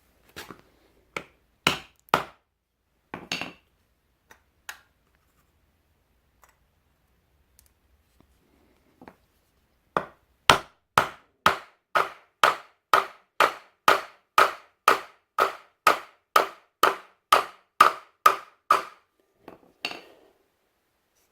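Hammer blows driving a new wooden handle into a tight-fitting ball peen hammer head: a few scattered knocks, then a steady run of about twenty sharp blows, roughly two a second.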